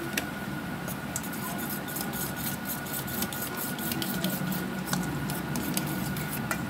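A spoon stirring masala powder into yogurt in a stainless steel bowl: wet squishing with quick scrapes and clicks of the spoon against the steel, coming thick and fast from about two seconds in.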